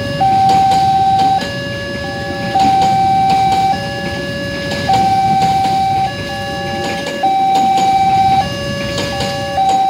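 Railway level-crossing warning alarm sounding: an electronic two-tone signal alternating between a higher and a lower note, each held just over a second. Under it is the low rumble of a passenger train passing over the crossing.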